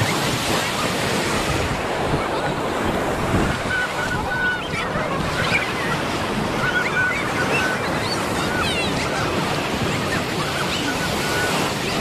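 Ocean surf washing onto a beach, a steady rush of breaking waves.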